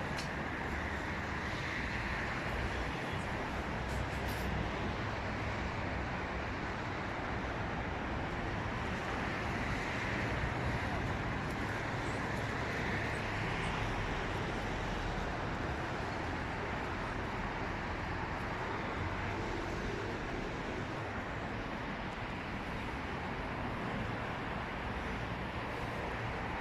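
Steady city traffic noise: a continuous hum of road traffic, with vehicles swelling past a few times.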